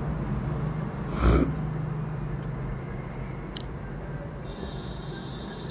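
Steady low room hum, with one short, loud breath from a man about a second in and a faint click later on.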